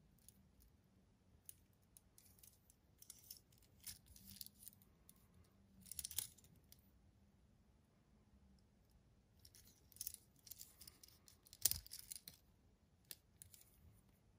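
A gold-tone metal link watch bracelet and case clinking and rattling in the hands as the watch is turned over, in several spells of small clicks, the loudest a single sharp click near the end.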